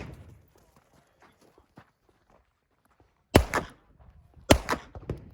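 Gunshots: one at the very start, then a pause, then shots about three and a half and four and a half seconds in, each with a short echo.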